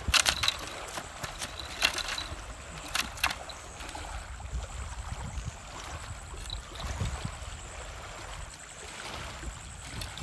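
Low wind rumble on the microphone, with a few sharp clacks of loose pebbles shifting underfoot and under hand in the first few seconds.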